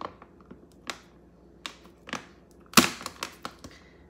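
Scissors snipping through ropes of pulled sugar candy as it hardens, each cut a crisp snap; about eight snaps at irregular intervals, the loudest about three seconds in.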